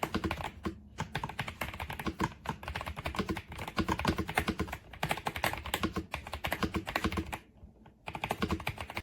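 Fast typing on an RK Royal Kludge S98 mechanical keyboard with pale green tactile switches: a dense run of keystrokes, with a short pause about seven and a half seconds in.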